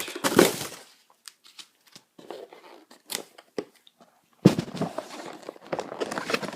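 Packaging being torn open and handled: scattered small clicks and rustles, then from about four and a half seconds a sudden louder stretch of tearing and crinkling.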